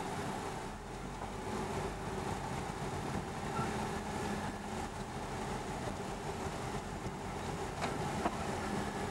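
Car driving on a rough, uneven road, heard from inside the cabin: steady engine and road noise, with a couple of sharp clicks near the end.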